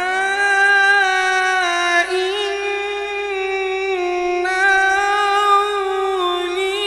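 Male qari reciting the Quran in melodic tilawat style, drawing out "Ala inna" in long, ornamented held notes. The voice is unaccompanied.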